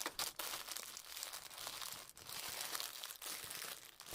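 Plastic packaging crinkling as it is handled: a dense run of small, fairly quiet rustles and crackles.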